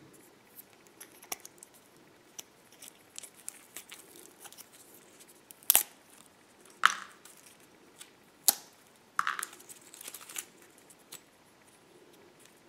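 Hands unwrapping a coiled Lightning-to-USB charging cable and pulling off its small plastic-and-paper wrap band: scattered light rustles and ticks, a few sharp plastic clicks in the middle, and a short patch of crinkling a little later.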